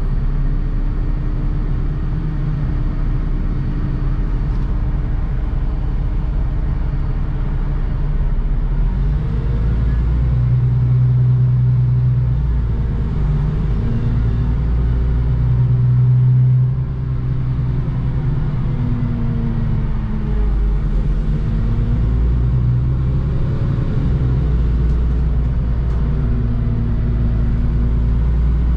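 Cabin noise of a NefAZ 5299 city bus on the move: a deep, steady rumble of engine and road, with the engine's drone rising and falling in pitch as the bus speeds up and eases off. It swells louder about halfway through, then drops off abruptly.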